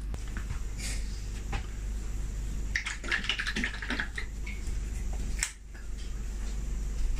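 Handling noises of food packaging: paper wrapping rustling, with scattered small clicks and a busier stretch of crinkling about three seconds in.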